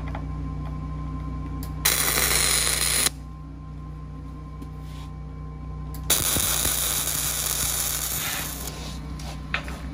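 Wire-feed (MIG) welder arc crackling in two bursts, about a second and then about two and a half seconds long, as bolts are tack-welded upright onto a steel beam. A steady low hum runs under it, with a couple of sharp clicks near the end.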